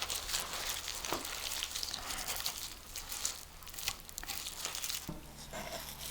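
A knife cutting through raw pork shoulder butt, separating two muscles joined by membrane: faint, irregular wet slicing and scraping with small ticks.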